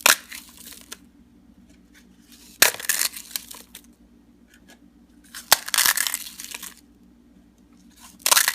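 Small crisp fried puris crushed by hand, crackling and snapping in four short bouts a couple of seconds apart.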